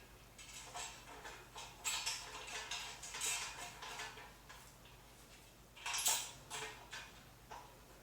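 Metal parts of a patio umbrella's frame clinking and rattling as bolts and knobs are handled and screwed in during assembly, in irregular bursts, the loudest about six seconds in.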